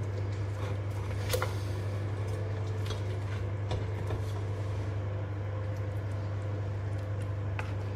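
Steady low machine hum, with a few light clicks of a serving utensil touching the plated food and dish.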